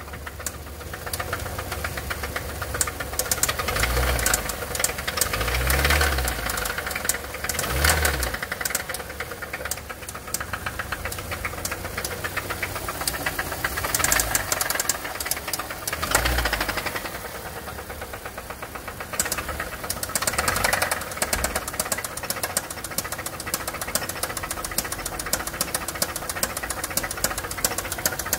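Hyundai YF Sonata LPI's Nu 2.0 four-cylinder LPG engine running with a rapid, loud knocking, blipped up several times. The knock carries on through each rev. It is an abnormal noise of unknown origin, which the owner fears may mean opening up the engine.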